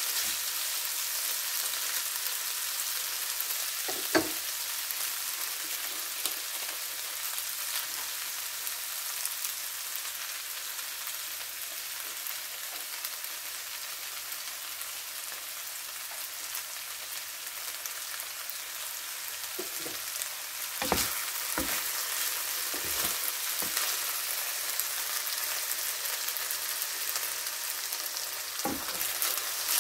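Chicken, bok choy and instant noodles sizzling steadily in a hot nonstick frying pan, with a few short knocks of utensils against the pan, one about four seconds in and a cluster past the twenty-second mark.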